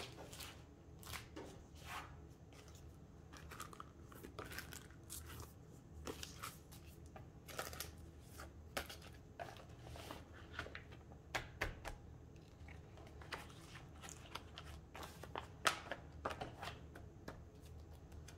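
Soft, irregular crinkling and clicking of plastic photocard binder sleeves as cards are handled and slid in and out of the pockets.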